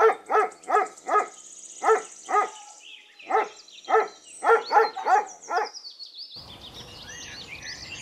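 A dog barking in a quick run of about a dozen short barks, with high bird chirps in the background. The barks stop about two seconds before the end and give way to steady outdoor noise with birds chirping.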